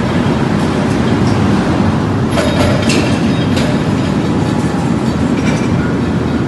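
Heavy forge-shop machinery running with a loud, steady rumble, with a few sharp metallic clinks between about two and three and a half seconds in.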